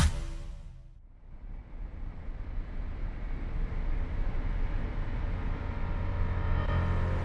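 Electronic intro music fades out within the first second. Then a low rumbling drone swells up and holds steady, with faint sustained tones coming in near the end: the opening of an ambient background music track.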